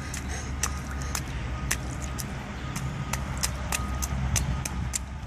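Small, sharp splashes of a toddler's sneakers stepping and stomping in a shallow puddle on a hard court, about three a second at an uneven pace, over a steady low rumble.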